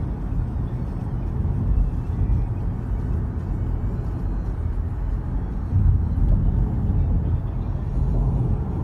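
Steady low rumble of a car driving on a freeway, road and engine noise heard from inside the cabin.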